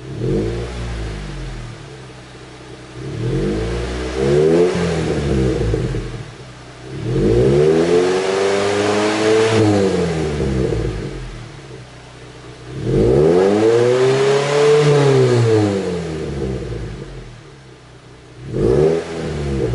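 A 2015 Mazda MX-5 Miata (NC) 2.0-litre four-cylinder, heard at the tailpipe, revved in place through a Goodwin Racing full exhaust: Max Power ceramic-coated header, Helmholtz midpipe and Super Q muffler with its baffles in. About five revs, each rising then falling in pitch. The middle ones are held longer, and the first and last are quick blips.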